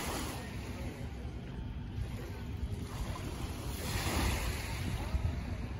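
Wind buffeting the microphone in a low, gusty rumble, over a wash of small lake waves that swells about four seconds in.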